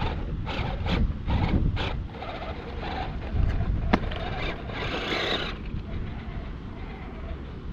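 Radio-controlled rock crawler truck driving over rock: scattered sharp clicks and knocks from the tyres and chassis on stone, with a short scrabbling hiss about four seconds in. Wind rumbles on the microphone throughout.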